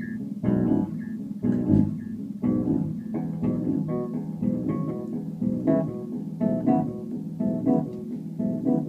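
Electric bass guitar played through a Laney combo amplifier: a steady stream of plucked notes in quick succession, some ringing out higher up the neck.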